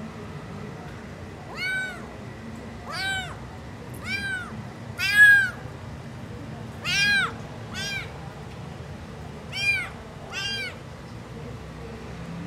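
Tuxedo kitten meowing repeatedly, about nine high-pitched calls a second or so apart, each rising and falling in pitch. The loudest comes about five seconds in.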